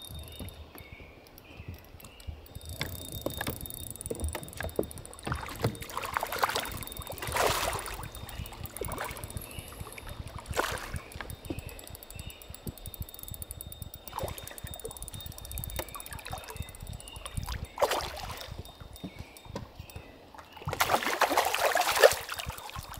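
A hooked smallmouth bass splashing at the surface beside the boat: several separate splashes, the loudest and longest near the end as it thrashes at the landing net.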